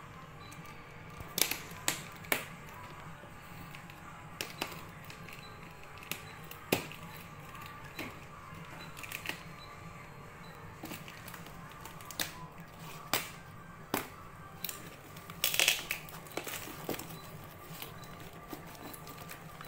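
A cardboard box being torn and cut open by hand: irregular sharp snaps and rips of corrugated cardboard and packaging, with a longer rip about three-quarters through. Faint background music plays underneath.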